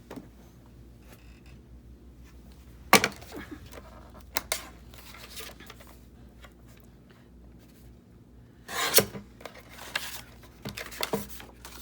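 Paper and craft tools being handled on a work table: faint shuffling of paper, broken by a sharp knock about three seconds in and a louder clatter about nine seconds in, with a few smaller clicks near the end.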